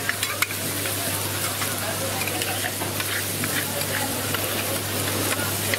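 Steak and a beef patty sizzling on a steel flat-top griddle, with a couple of sharp metal clicks near the start as the knife and scraper touch the plate. A steady low hum runs underneath.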